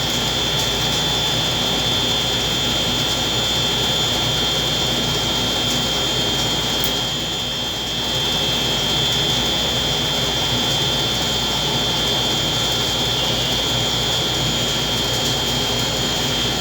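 Steady machine noise with an even hiss and a constant high whine, running without change.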